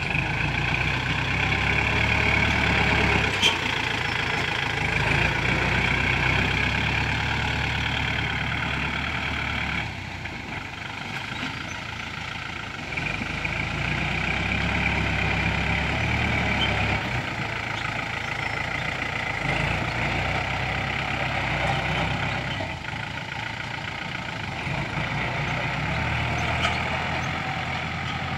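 Kubota tractor's diesel engine running as it pulls a disc plough through paddy soil, its sound growing louder and quieter in stretches of a few seconds.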